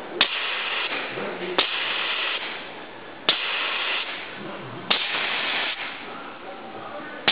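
Repeated short bursts of hissing air, each starting with a sharp snap, about every second and a half: four in a row, with a fifth right at the end.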